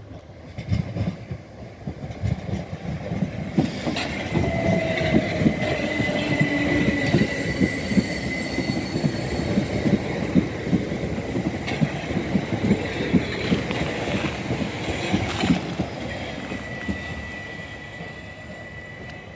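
A Southern multiple-unit passenger train passing close by, its wheels clattering rapidly over rail joints and points, with a thin, high, steady wheel squeal. The clatter builds over the first few seconds and eases off near the end, when the squeal returns briefly.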